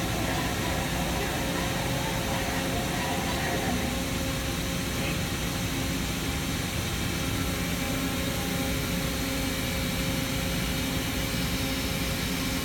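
Hyundai Kia CNC horizontal boring mill running, a steady mechanical hum and whine with a few constant tones; the tone shifts slightly about four seconds in.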